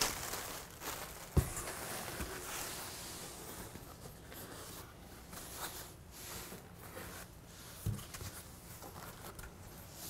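Packing material being handled in a cardboard box: light rustling and scraping as foam padding tubes are pulled out, with two dull knocks, one about a second and a half in and one near the eighth second.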